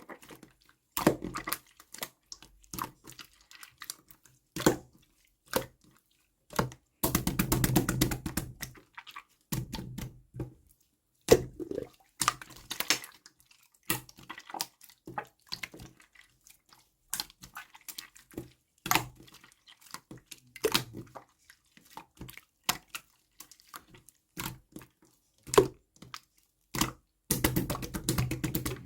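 Intermittent wet handling sounds: squishing and dripping mixed with short clicks and taps, with longer wet stretches about a quarter of the way in, near the middle third and near the end.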